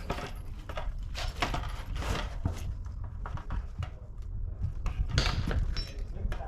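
Wind buffeting the microphone as a steady low rumble, with irregular knocks and rustles over it.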